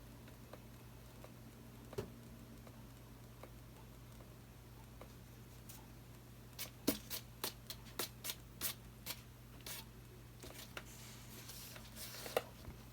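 Light, irregular clicks and taps from handling while a poured acrylic canvas is spun, mostly in the middle of the stretch, over a faint steady low hum.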